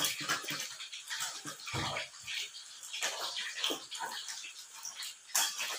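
Eating sounds: irregular wet chewing and lip smacks, with fingers mixing food on a plate.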